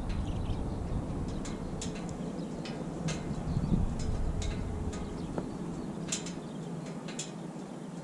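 Wood campfire burning, crackling with irregular sharp pops and snaps. Low wind rumble on the microphone fades out about two seconds in.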